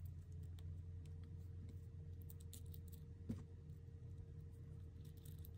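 Small metal model-kit parts faintly clicking and clinking as they are handled and fitted together, with one sharper click about three seconds in, over a low steady hum.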